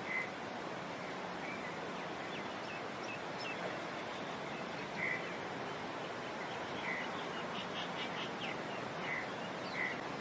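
Steady outdoor background noise with scattered short bird calls, a chirp every second or two, and a quick run of about five notes about eight seconds in.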